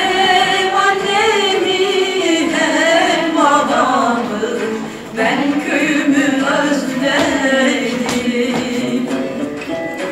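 Music with a sung melody in a woman's voice, a henna-night song, with a short pause about five seconds in.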